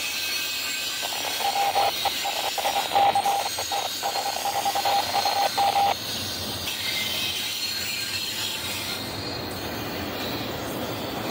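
Double-stack container freight cars rolling past with a steady rolling noise. A high, steady wheel squeal starts about a second in, flickers on and off, and cuts off sharply around six seconds in.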